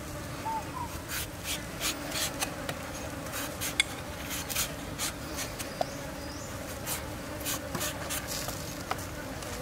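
Cleaver blade shaving the skin off a green mango, a run of short scraping strokes about two to three a second, over a steady low hum.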